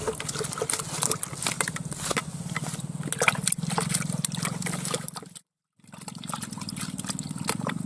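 Wet splashing and slapping in a bucket of muddy water as a freshly caught Asian swamp eel is handled in it, with many small sharp clicks and knocks of handling. The sound cuts out completely for a moment about five and a half seconds in.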